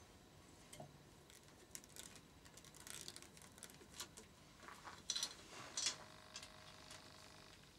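Faint, scattered clicks and light taps of the rear cam chain guide being handled and set into the engine casing, with two louder clicks about five and six seconds in.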